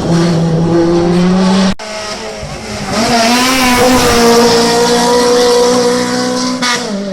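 Hill-climb race car engines at high revs. One car runs at full throttle until an abrupt cut about two seconds in, then another car revs up and holds high revs before easing off near the end.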